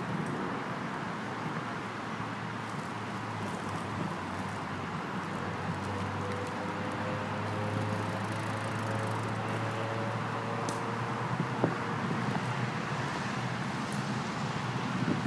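Steady outdoor waterside ambience: a continuous hiss and rumble of distant engines. A low engine hum swells and fades in the middle.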